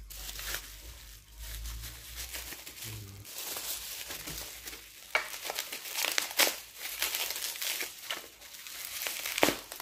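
Bubble wrap crinkling and rustling as hands work it off a telescopic landing-net handle to unwrap it, with a few sharper cracks in the second half.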